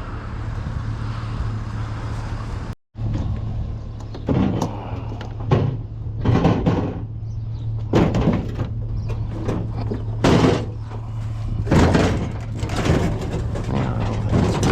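A vehicle engine idling steadily, with a series of clunks and rattles from about four seconds in as items are shifted and set in place.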